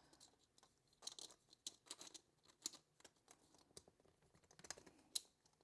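Faint, irregular light clicks and taps of 3D-printed plastic pieces being handled and fitted together, beginning about a second in.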